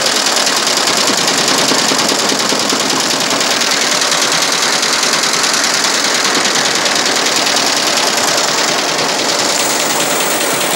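SWF multi-head embroidery machine running and stitching: a steady, rapid mechanical rhythm from its needle heads.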